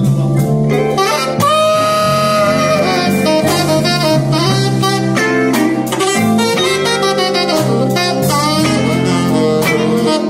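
A live jazz-blues band playing, with a tenor saxophone taking the lead over keyboard and electric guitar accompaniment and a regular beat; the saxophone holds one long note about a second and a half in before moving on through a running line.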